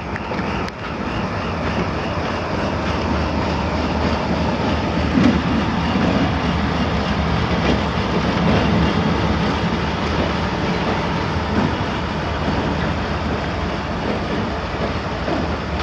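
TU2 narrow-gauge diesel locomotive running as it passes at low speed, its engine a steady low hum, followed by its passenger coaches rolling by on the rails.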